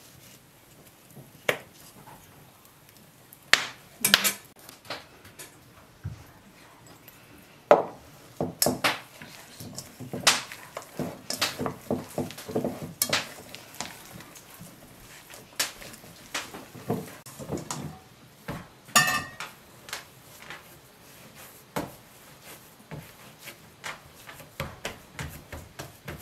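Kitchen work on a wooden table: irregular clinks and knocks of a white enamel bowl and utensils as butter, flour and sugar are worked into a tart dough by hand. The knocks are sparse at first and come thick and fast in the middle.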